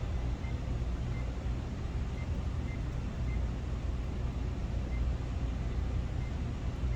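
Schlage electronic keypad lock beeping faintly, a short beep for each button as a code is keyed in, about nine at an uneven pace. Under them runs a steady low rumble.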